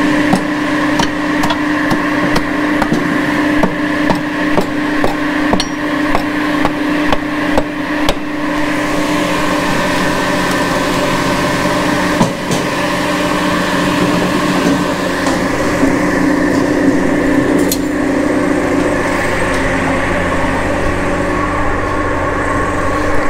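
Japa 700 firewood processor running steadily, driven through its PTO shaft by an electric three-phase power pack, with a constant hum. Irregular knocks of wood come in the first eight seconds or so, and a single sharp knock about twelve seconds in.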